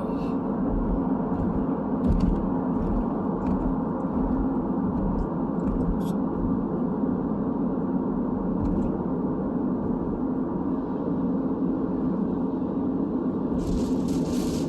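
Steady road and engine rumble inside a moving car's cabin, with scattered faint clicks. A hiss comes in near the end.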